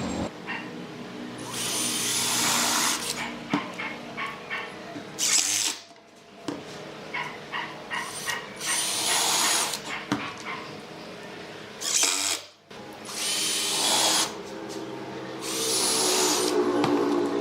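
Handheld power drill run in about six short bursts into wood, with small knocks and clicks between the bursts.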